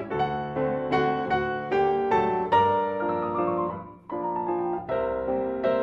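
Grand piano played solo: notes and chords struck in a steady pulse, with a falling run of notes that fades into a brief softening about four seconds in, after which the struck chords resume.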